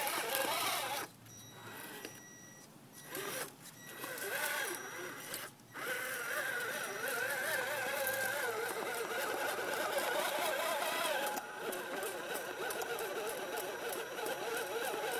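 Electric motor and geared drivetrain of a radio-controlled scale rock crawler whining as it climbs over rocks, the pitch wavering up and down. It comes in short bursts with pauses for the first few seconds, then runs steadily from about six seconds in.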